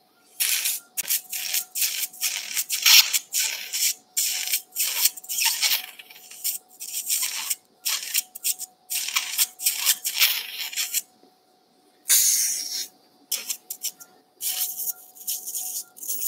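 Surgical suction tip drawing blood and fluid out of an open wound: repeated short hissing slurps that start and stop irregularly, with a faint steady tone underneath.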